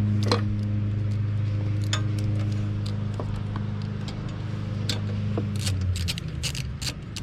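Light metallic clicks and clinks of carburetor bolts and parts being handled and threaded in by hand, over a steady low machine hum that drops in pitch and fades about six seconds in.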